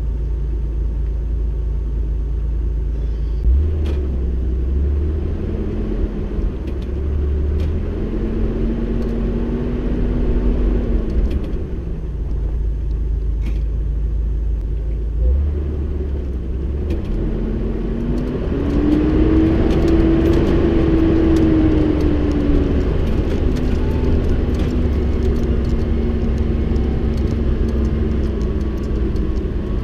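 Off-road vehicle driving on a rough dirt track, with a steady low rumble. Its engine pitch rises and falls several times as it speeds up and slows, and scattered clicks and rattles come through.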